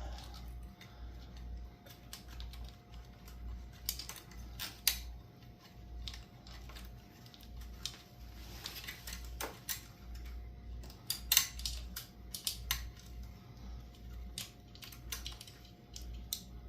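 Irregular small plastic clicks and taps as a zip tie is worked and threaded into place to hold a horn on a bicycle, with a faint steady hum underneath.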